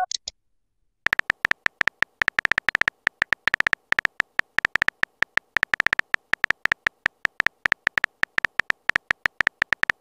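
Rapid keyboard tap clicks from a chat-story app, one short clicky tick per letter, several a second, as a message is typed out. They start about a second in, after a brief pause.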